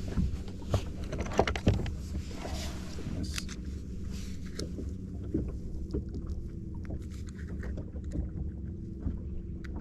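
Small boat at rest on open water: a steady low wash of water and wind against the hull, with scattered light clicks and knocks from handling gear aboard, and a faint steady hum in the second half.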